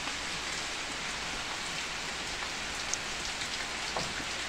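Heavy rain falling steadily on a yard, a constant hiss with a few separate drop ticks standing out near the end.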